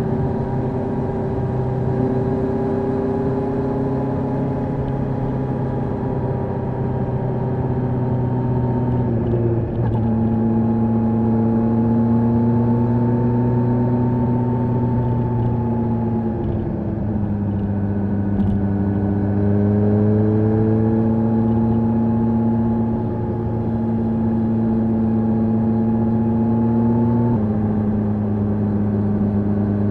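Kawasaki H2 SX SE's supercharged inline-four with an Akrapovic exhaust, heard from on board while cruising at steady revs. Its pitch drops sharply about a third of the way in and again near the end, as on an upshift, with a slower dip and rise in between.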